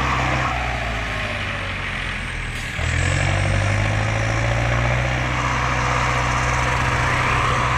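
Tractor diesel engine and car engine running flat out in a tow-rope pull, the engines working hard against the load. The engine note sags briefly a little under three seconds in, then rises again and holds at higher revs.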